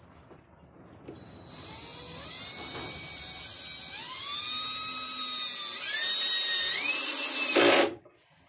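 Cordless drill driving a screw into a board: the motor whine starts about a second in, climbs in pitch in steps and grows louder, then cuts off abruptly near the end.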